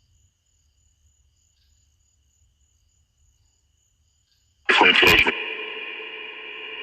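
Radio-sweep 'spirit box' output: near silence, then a sudden loud burst with clicks about four and a half seconds in, which settles into a steady tone of several held pitches that runs to the end.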